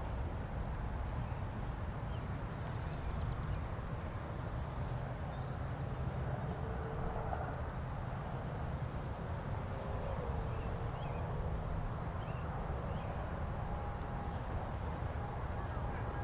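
Distant Federal Signal 2001 outdoor warning sirens sounding for a test, heard faintly as wailing tones that come and go over a steady low rumble of outdoor background noise. A few bird chirps can be heard.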